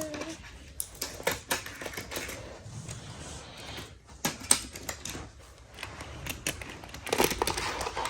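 Hot Wheels die-cast cars and the plastic Downtown Tune Up Shop playset being handled, giving irregular plastic and metal clicks and knocks, with a denser clatter about seven seconds in.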